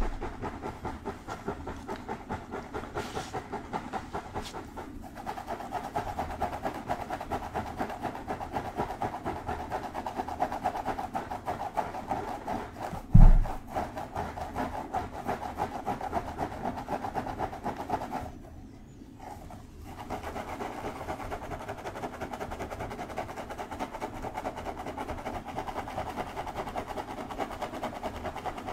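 Fingers scratching through long hair on a head: a dense, fast, rhythmic scratching rustle. A single low thump comes about 13 seconds in, and the scratching breaks off briefly about two-thirds of the way through.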